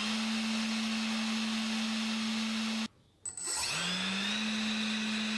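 3D-printed electric ducted fan running steadily with a whine and a rush of air, first fitted with a toroidal propeller. It cuts off about three seconds in. After a brief gap the same fan with a standard propeller spins up with a rising whine, then settles into a steady run.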